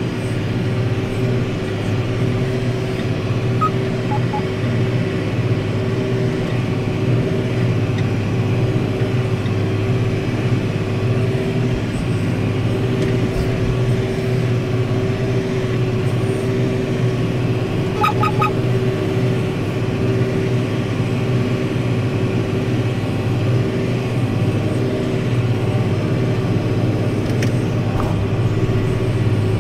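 Tractor engine running steadily under load, heard from inside the cab while it pulls a disc harrow through the ground. A few short high beeps sound about halfway through.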